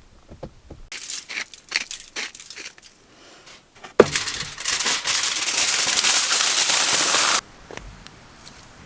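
Aluminium foil being handled and crinkled, first in scattered crisp crackles, then a loud continuous crinkling for about three seconds that stops abruptly, as food is wrapped in foil to go on a campfire.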